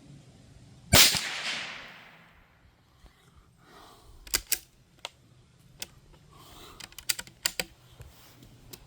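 A single shot from a Marlin 782 .22 Magnum bolt-action rifle about a second in, loud and ringing out for about a second. Several sharp metallic clicks follow, the bolt being worked to chamber the next round.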